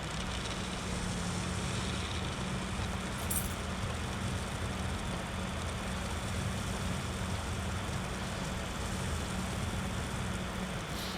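Compact backhoe tractor's diesel engine running steadily, with a brief high click about three seconds in.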